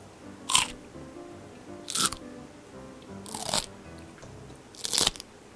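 Four short crunchy biting and chewing sounds, about a second and a half apart, from someone eating a piece of steamed cassava suman, over soft background music.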